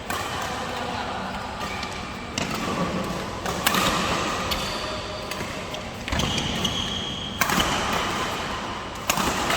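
Badminton shuttlecock struck by rackets in a rally or drill: sharp hits every one to two seconds.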